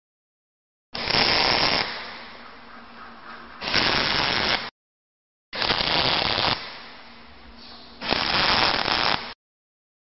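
Electric arc welding tack welds fixing a steel centering kit to a bore surface: two stretches of crackling arc, each loud for about a second, sinking to a softer hiss, then loud again before cutting off abruptly.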